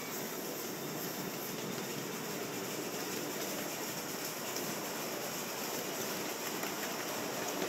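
Steady running noise of a miniature steam engine on the move, with a few faint clicks near the end.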